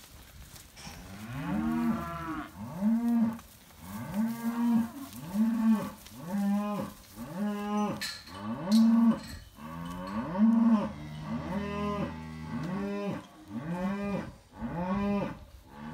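Cows mooing over and over, a run of short calls that rise and fall in pitch, about one a second, starting about a second in.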